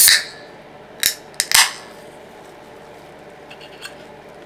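A Pepsi can being opened: a sharp crack of the ring-pull with a short hiss of escaping gas, then two more short crackling snaps about a second later, and a few faint clicks near the end.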